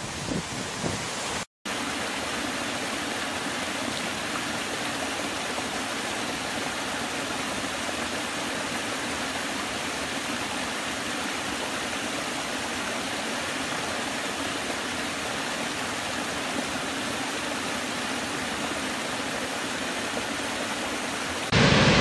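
Steady rushing of a small woodland stream spilling over low mossy rock steps, an even hiss of water. Near the start a brief gap of silence breaks a gustier waterfall recording with wind on the microphone, and near the end a much louder, deeper waterfall rush takes over.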